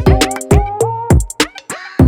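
Electronic hip hop backing music with a drum-machine beat: deep kick drum hits that drop in pitch, several times a second.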